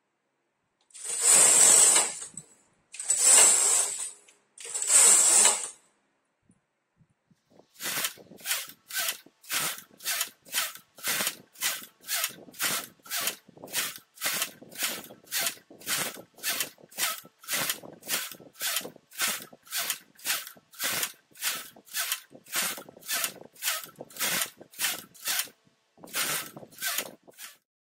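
Carriages of a Silver Reed SK830 knitting machine sliding along the needle bed: three longer passes in the first few seconds, then after a short pause a steady run of short passes, about two a second, until near the end.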